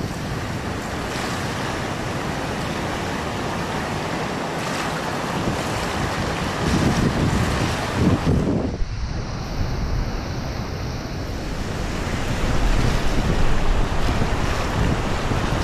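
Steady rush of ocean surf with wind buffeting the microphone, the gusts strongest about seven to eight seconds in.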